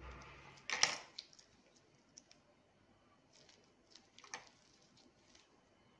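Clicks and taps of a small kitchen knife and gloved fingers against a ceramic plate and stone countertop as dried figs are slit and stuffed with garlic cloves, with the loudest clatter about a second in and a second cluster of taps near the four-second mark.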